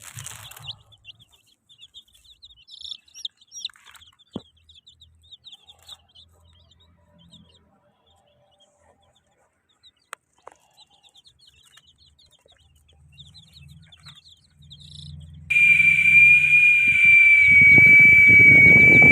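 Chicks peeping in quick, high chirps for the first several seconds, then a pause with only faint sounds. About three-quarters of the way in, a loud steady high tone starts and holds to the end, with a low rumble joining under it.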